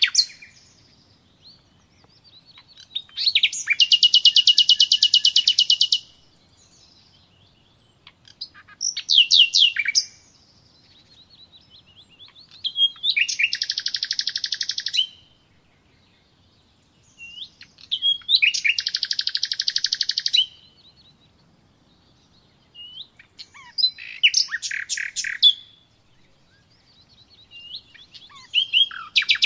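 A songbird singing six short, high-pitched phrases a few seconds apart. Some phrases are fast trills and others are a few quick falling whistles.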